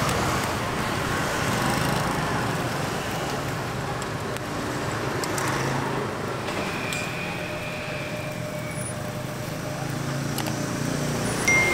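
Steady street traffic noise of passing vehicles, with a thin held tone for about two seconds a little past the middle and a few faint clicks.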